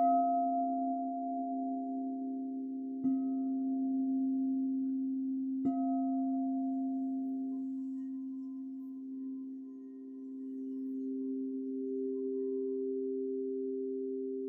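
Singing bowls being struck three times, about three seconds apart. Each strike rings out and slowly fades over a steady, sustained low hum of ringing tones, which swells again near the end.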